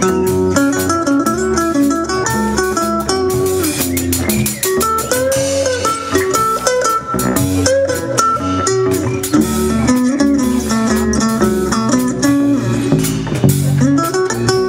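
A live blues band plays an instrumental break: a picked lead guitar line with bent notes over rhythm guitar and drums.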